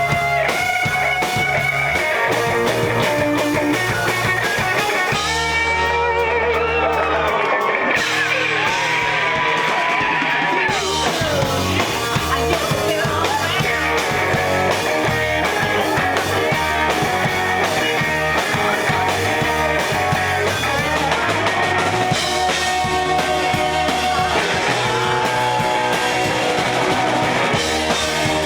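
Rock band playing live: electric guitar, bass and drum kit, with bent guitar notes about eight to eleven seconds in.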